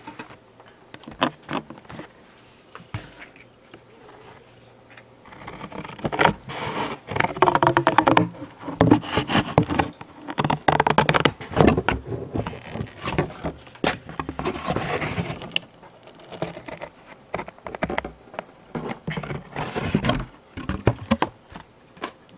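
Funko Pop cardboard box being pulled apart by hand: glued seams tearing with a buzzy rip, and the cardboard panels scraping and rustling. A few small clicks at first, then much louder, denser tearing from about five seconds in.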